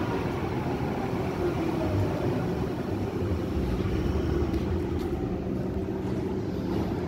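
Berlin U-Bahn U7 train standing at an underground platform just after running in, its equipment giving a steady electrical hum on a few held tones over a low rumble.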